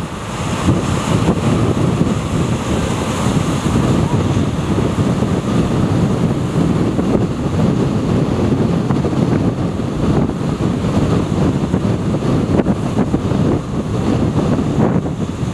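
Wind buffeting the microphone over the steady wash of heavy ocean surf breaking on rocks.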